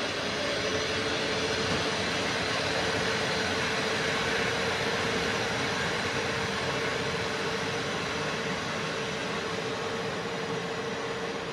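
Passenger coaches of a PKP Intercity train hauled by an EP09 electric locomotive rolling away along the platform: a steady rolling rumble and hiss, with a steady hum underneath, easing slightly near the end.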